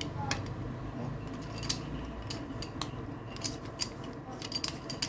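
Irregular sharp clicks and light clacks of small hard plastic gear being handled, about a dozen scattered through the few seconds, over a low steady hum.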